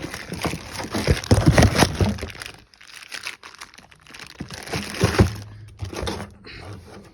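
Plastic parts packaging crinkling and rustling as boxed engine parts are handled on a table, with light clatter; the loudest handling comes about a second in and again about five seconds in.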